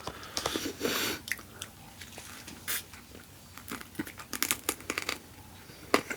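Close-miked biting and chewing of crispy fried lemon pepper chicken wings: a run of crunches and sharp mouth clicks, busiest about a second in and again near the end.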